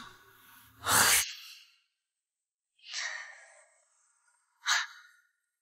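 A man's sleepy sighs and breaths as he wakes and stretches in bed: a breathy sigh about a second in, a longer exhale near three seconds, and a short breath near the end.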